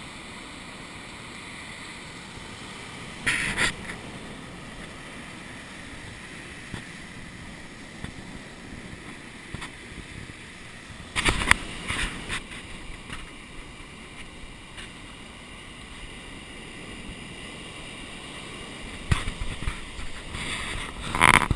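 Steady wash of breaking surf and wind, picked up through a GoPro Hero 2's microphone. Brief loud bursts of noise cut in about three seconds in, around eleven seconds, and again several times near the end.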